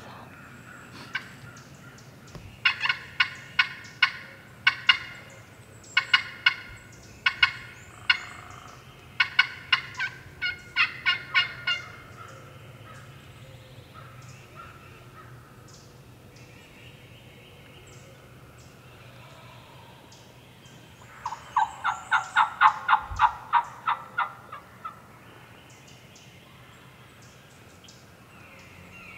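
Wild turkey gobbling repeatedly: several loud gobbles close together, a pause of several seconds, then another burst of gobbling.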